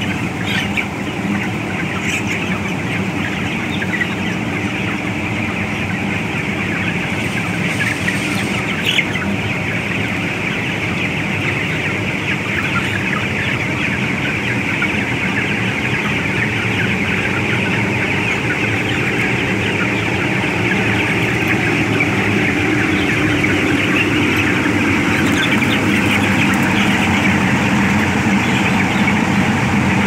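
A large flock of broiler chickens in a poultry house, thousands of birds cheeping and clucking at once in a dense, steady chatter.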